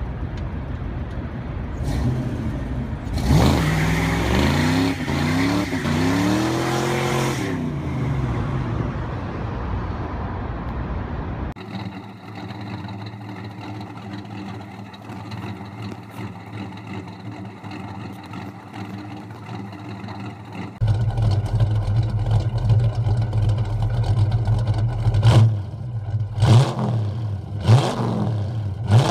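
Car engine revved several times, climbing and falling back, then settling. After a cut, another car engine idling steadily, louder in the last third, with a few quick blips of the throttle near the end.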